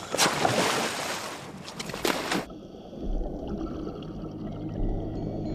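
A scuba diver splashing into the sea from a boat, a loud rush of splashing water for about two seconds. Then the sound turns suddenly muffled: the underwater rumble of bubbles with a faint low steady hum.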